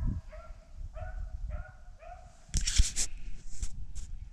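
Hunting dogs giving short, high-pitched bays and yelps, about five in the first two seconds, the cry of hounds running a rabbit. About two and a half seconds in comes a loud burst of rustling and crunching, followed by a few sharp snaps.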